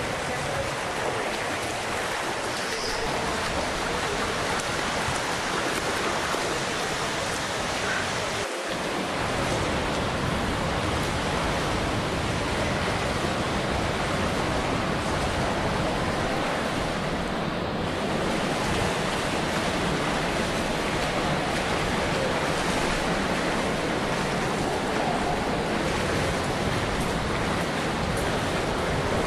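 Steady rushing of waterfalls and cascading stream water, with a brief break about eight and a half seconds in.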